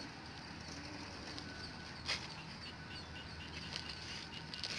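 A cast net being drawn in through still pond water, with a short splash about two seconds in and another near the end. Faint bird chirps in the background.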